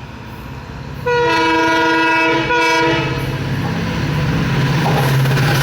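Locomotive horn of an express train sounding a long blast and then a short one on approach. It is followed by a steady low hum and the growing rumble of the train running through at speed.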